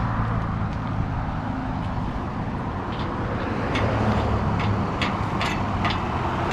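Truck engine running with steady road noise, and a few short sharp clicks from about three to six seconds in.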